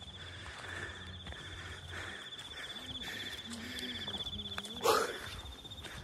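An insect trilling steadily in one high, finely pulsing tone, with faint voices in the middle and a short, sudden loud sound about five seconds in.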